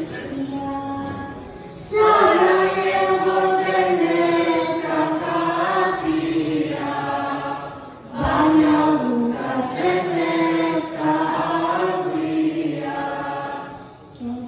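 Mixed choir of young men and women singing an ilahija, a Bosnian Islamic devotional song. It is quieter at first; the full choir comes in loudly about two seconds in and again just after eight seconds.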